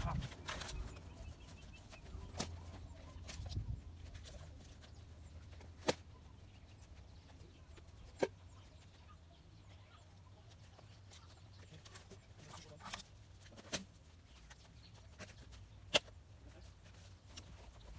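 Dry firewood logs and branches knocking against each other as they are dropped and laid onto a woodpile, a sharp knock every few seconds over a low steady background.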